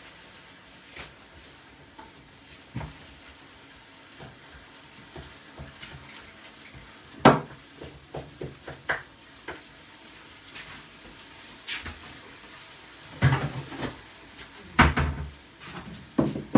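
Kitchen clatter: scattered knocks and clinks of dishes, utensils and containers being handled on a table and counter, with one sharp knock about seven seconds in and a louder run of thumps near the end.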